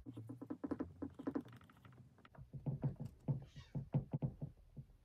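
A weird noise: a run of short, irregular clicks and squeaks, several a second, which the owner thinks came from her pet tortoise.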